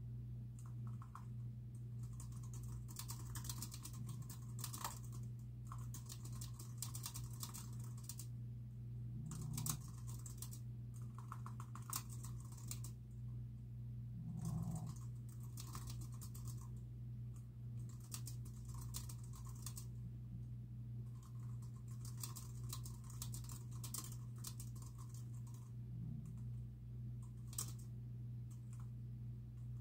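Typing on a computer keyboard: quick runs of keystrokes broken by short pauses, over a steady low hum.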